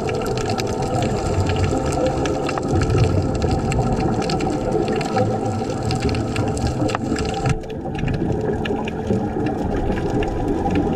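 Underwater sound picked up by a diving camera: a steady rushing of water and scuba divers' exhaled bubbles, with scattered sharp clicks. The higher part of the sound drops out abruptly about seven and a half seconds in.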